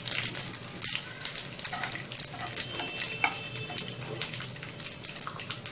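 Oil sizzling in a kadhai with mustard seeds, cumin, ginger and broken dried red chillies, with many short, sharp crackles as the seeds pop in the hot oil, while a wooden spatula stirs the tempering.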